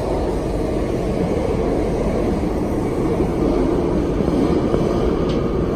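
Steady rumble of an MTR West Rail Line electric train running at speed, heard from inside the carriage.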